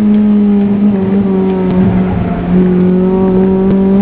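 Honda Civic's B16 1.6-litre DOHC VTEC four-cylinder engine running hard at high revs, its pitch held nearly steady, heard from inside the cabin.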